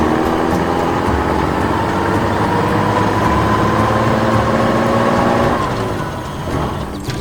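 A motor running with a steady, many-toned hum that rises slowly in pitch, then drops away about five and a half seconds in.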